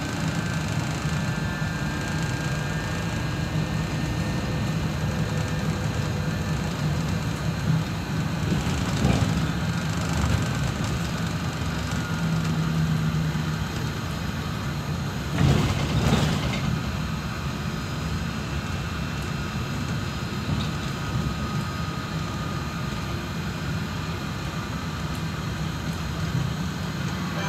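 Inside a moving Solaris Trolino 12 trolleybus: the steady rumble of the ride, with the electric drive's faint whine slowly shifting in pitch as speed changes. A brief knock or jolt comes a little past halfway.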